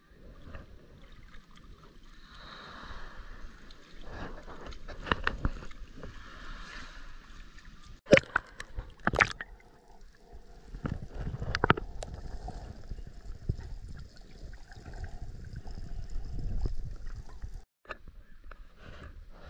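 Water sloshing and gurgling around a camera moving in and out of the water's surface, muffled while it is under. Several sharp knocks or splashes stand out, loudest about eight seconds in.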